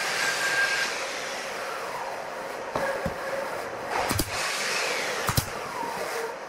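Pneumatic nail gun firing into a wooden corner joint: two sharp shots about a second apart, past the middle, over a steady whooshing background noise.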